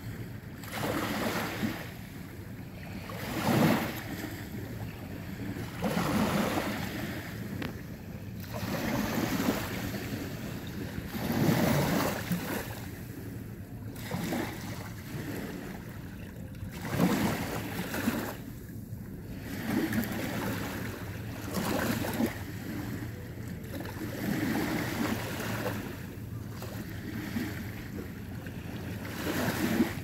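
Small sea waves lapping and breaking at the shoreline, one soft wash swelling and falling away every two to three seconds.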